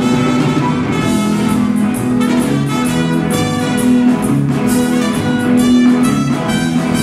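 Live band playing, with trumpets holding sustained notes over electric guitar and a steady drum beat.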